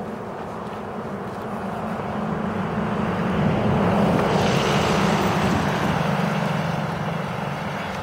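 A motor vehicle passing by, its engine and road noise growing louder to a peak about halfway through and then fading.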